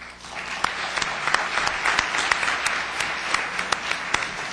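Audience applauding, many hands clapping at once; it starts suddenly and begins to die away near the end.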